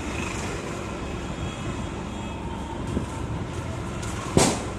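Steady outdoor street noise with a low rumble, and one sharp knock near the end.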